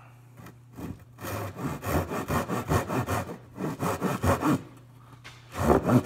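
Hand saw cutting through wood with quick back-and-forth strokes, about three a second, cutting the shoulders of a half-lap joint by hand. The sawing starts about a second in, stops briefly near the end and then starts again.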